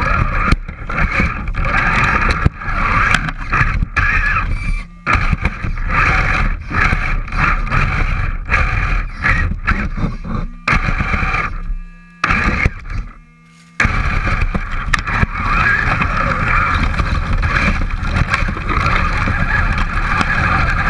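Radio-controlled rock-crawler truck's motor and gears whining as it drives over leaves, sticks and rocks, with scraping and knocks from the chassis and tyres. The whine cuts out briefly a few times, dropping almost quiet for a couple of seconds about two-thirds of the way through, then picks up again.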